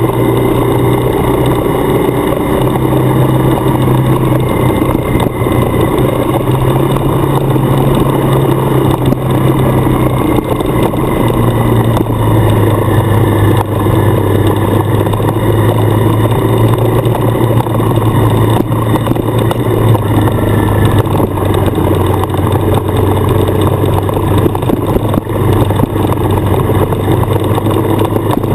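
Adventure motorcycle's engine running steadily while riding a gravel road, heard from the rider's seat with wind and tyre noise over it; the engine note shifts slightly about ten to twelve seconds in.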